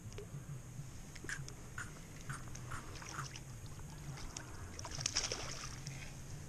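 A hooked fish splashing and thrashing at the water's surface beside the boat: a run of short splashes about every half second, then a louder splashing flurry about five seconds in, over a low steady hum.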